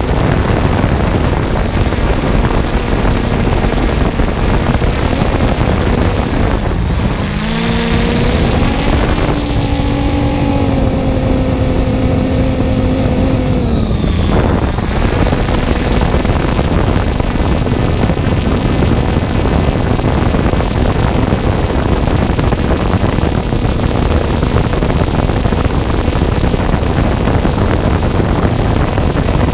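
Quadcopter drone's electric motors and propellers humming under a steady rush of air noise, heard from its onboard camera. About seven seconds in, the motor pitch rises, holds, and falls back at around fourteen seconds.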